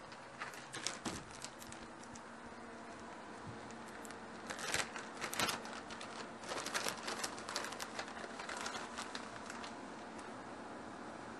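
Kitchen handling sounds: short spells of crinkling and light clicks about half a second in, around four and a half seconds, and again from six and a half to nine and a half seconds, over a steady faint hum.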